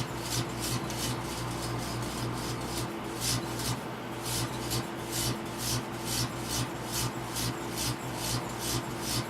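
Microwave oven running with a steady hum while plasma arcing inside a lightbulb in the oven crackles in short, regular pulses, about three a second.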